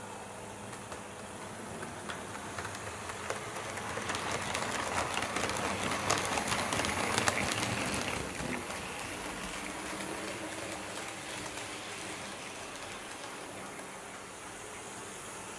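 HO scale model BR 78 4-6-4T tank locomotive and coaches running on track: a rolling rumble with many quick clicks of wheels over rail joints. It grows louder as the train comes close, is loudest about halfway through, then fades.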